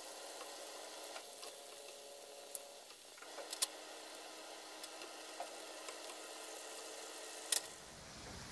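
Pestiño dough strips deep-frying in hot oil in a pan: a steady sizzle, with a few sharp clicks of wooden spatulas against the pan as the pieces are turned.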